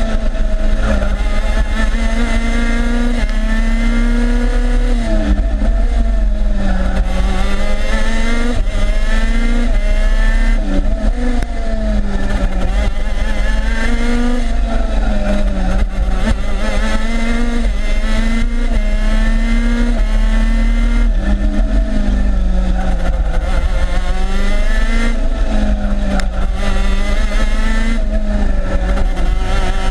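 TM 125cc two-stroke KZ2 shifter kart engine at racing speed. Its revs repeatedly climb and drop as the kart accelerates down the straights and slows for the corners.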